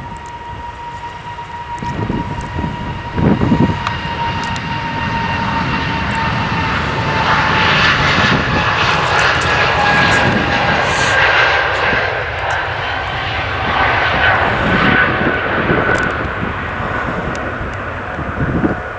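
Airbus A320neo's two CFM LEAP-1A turbofan engines at takeoff power, a steady jet roar that swells to its loudest about halfway through and then eases off. Its whining engine tones slowly drop in pitch as the aircraft passes.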